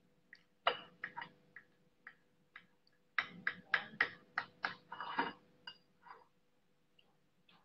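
Metal cutlery clinking and tapping on a ceramic plate: a string of light, ringing clicks, coming quickly one after another from about three seconds in to past five seconds.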